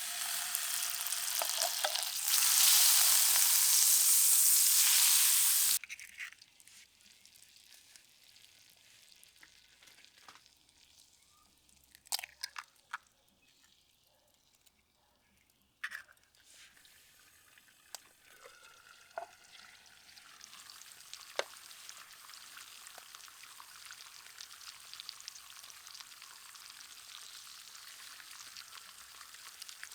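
Butter and oil sizzling loudly in a hot pan over a wood fire, louder from about two seconds in, then cutting off suddenly near six seconds. A few sharp clicks follow, then a faint steady sizzle of frying from about twenty seconds on.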